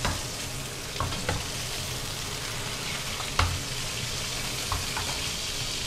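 Thin slices of marinated chicken breast frying in oil in a nonstick frying pan: a steady sizzle, with a few light knocks as a silicone spatula works the pan.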